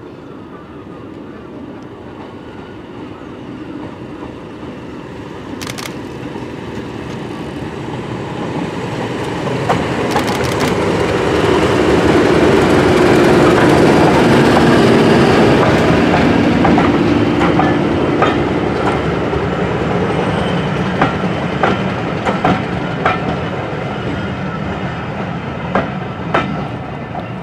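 Brush Type 2 Class 31 diesel locomotive, with its English Electric 12SVT V12 engine, passing with a train of coaches. The engine's drone builds to a peak about halfway through and fades as it goes by, then the coach wheels click over the rail joints.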